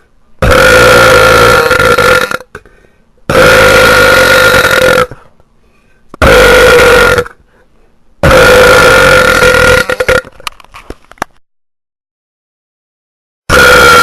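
A person belching five long, loud burps at a steady pitch, each lasting one to two seconds with short pauses between. The last burp starts just before the end.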